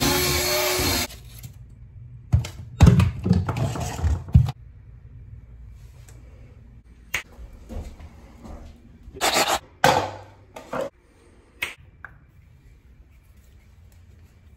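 Scattered knocks, scrapes and clicks of a porcelain toilet being set on its floor flange and handled, in two short clusters with a few single clicks between.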